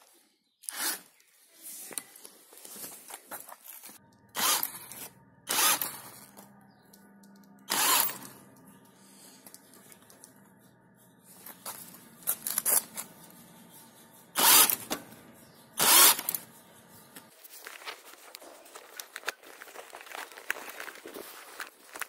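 Cordless-screwdriver drive motors of a homemade electric bike running with a steady pitched hum, starting about four seconds in and cutting off sharply about seventeen seconds in. Loud rustles and knocks of handling come and go throughout.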